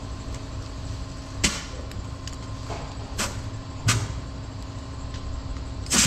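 Compressed air spurting from an air hose at a truck tyre being inflated: four short, sharp hisses a second or two apart, over a steady low hum.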